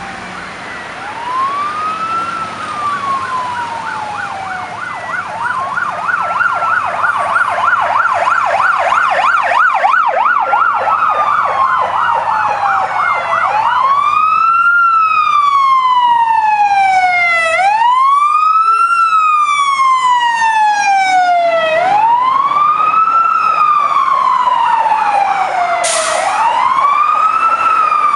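Fire service emergency sirens approaching through traffic. A wail siren rises and falls every three to four seconds, with a fast yelping siren over it from about five to thirteen seconds in. The wail grows steadily louder as the fire truck nears, with a brief high burst near the end.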